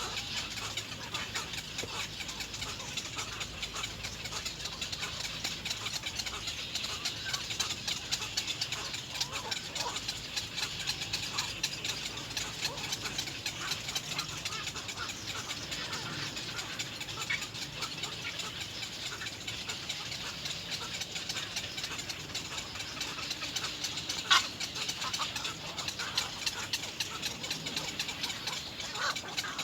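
Little egret chicks' rapid, clicking begging chatter over a steady high hiss, with one sharp click a little over 24 seconds in.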